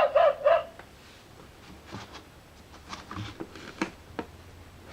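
A few faint, scattered clicks and taps over a low steady hum, from the sound book being handled. The book's own audio breaks off within the first second.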